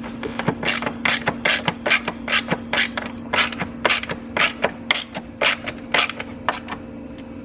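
Ratchet driving in a T25 Torx screw, a short rasp of clicks on each back-stroke at about three a second, stopping shortly before the end.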